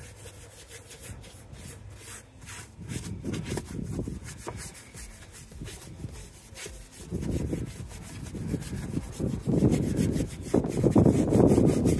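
Paintbrush bristles scrubbing a dirty plastic engine-bay cover wet with cleaner, in rapid back-and-forth strokes. The scrubbing gets louder about halfway through and is loudest near the end.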